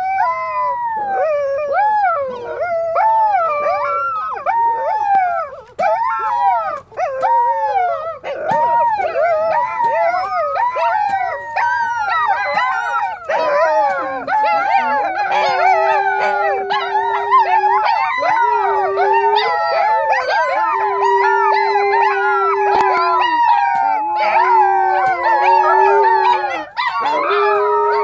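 A group of pups howling together: many short, overlapping howls that rise and fall, growing into a dense chorus. From about halfway, a lower, steadier howl is held for a second or two at a time, several times over.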